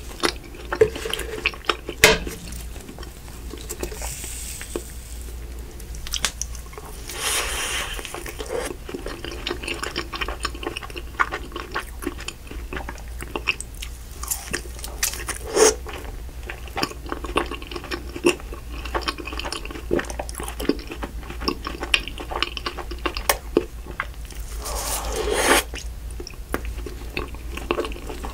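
Close-up mouth sounds of eating soft crème brûlée cookie ice cream: wet biting, chewing and lip smacking, with many sharp clicks and a few longer sucking swells.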